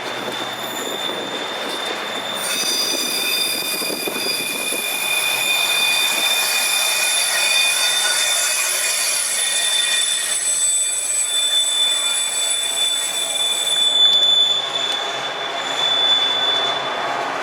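CSX freight train's wheels squealing against the rails as it moves from one line onto another through a curved crossover: several steady high-pitched squeal tones, thickest from about two and a half seconds in until about fourteen seconds in, with one tone running throughout.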